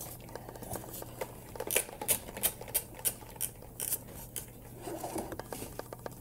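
Fingers rubbing and scratching on a painted polystyrene foam ball as it is turned in the hand: a run of short scratchy clicks, thickest in the middle.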